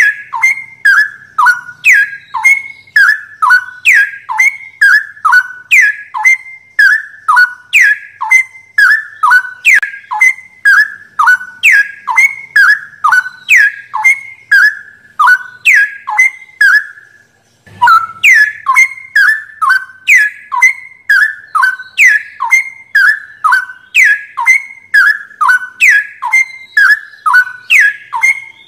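Straw-headed bulbul (cucak rowo) song: a loud, fast series of falling whistled notes, about two or three a second, with one brief pause a little past halfway.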